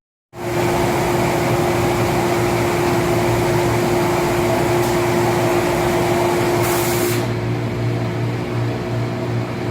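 Factory machinery running steadily: a loud mechanical drone with a constant hum and a steady tone, and a short hiss of air about two-thirds of the way through.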